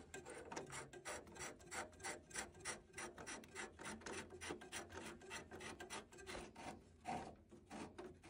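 Faint rapid scraping clicks, about four a second, of a copper flow pipe and its brass fitting being twisted and worked into place by hand on a combi boiler's flow manifold.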